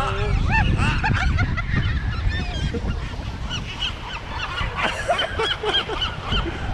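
A flock of seagulls squawking, many short rising-and-falling calls overlapping one another as they compete for scraps of pizza.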